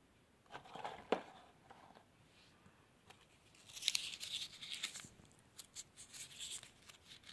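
Paper crinkling and tearing as the paper cap over a firecracker's fuse is torn open, densest from about four to five seconds in, with scattered crackles after. Before that, a rustle of handling with one sharp knock about a second in.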